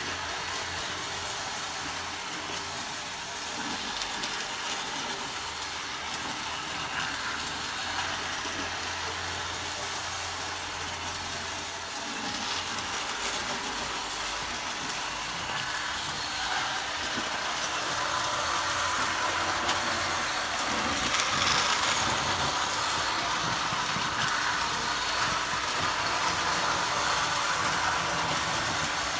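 Small electric toy train running round a plastic track: a steady mechanical running noise from its motor and wheels, growing louder in the second half as the train comes closer.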